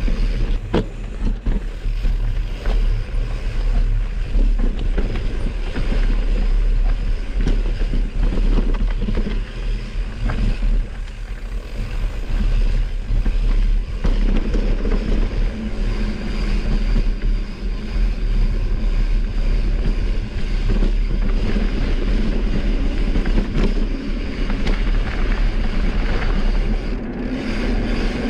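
Wind rushing over the microphone of a camera riding on a mountain bike going down a trail, with a heavy rumble and many quick clicks and rattles from the tyres and bike over rough ground.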